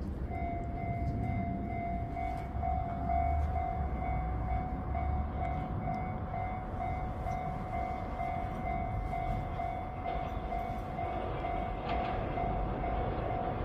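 Railway level-crossing warning bell that starts about a third of a second in and rings in a steady, evenly repeating ding, over the low rumble of an approaching electric train.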